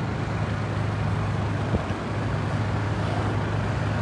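City street traffic: a steady low engine hum under the general rush of motor vehicles, with one small click nearly two seconds in.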